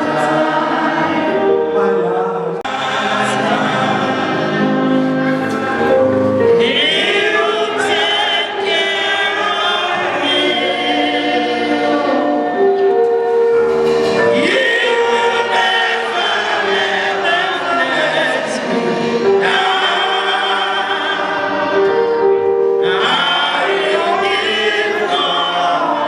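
A group of voices singing a slow gospel worship song together, with long held notes.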